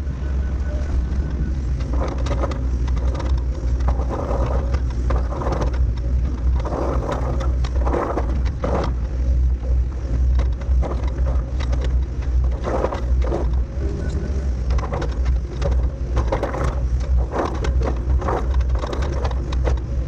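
Diesel engine of heavy earthmoving equipment running steadily under load, with irregular bursts of crunching and scraping from the machine's work.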